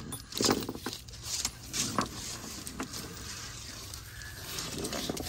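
Scattered rustles and sharp clicks of plastic wire loom and wiring being handled and fed through, the loudest about half a second and two seconds in.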